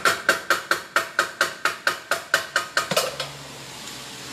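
Rapid, evenly spaced hammer taps on metal, about five a second, each with a short ring. The taps stop about three seconds in.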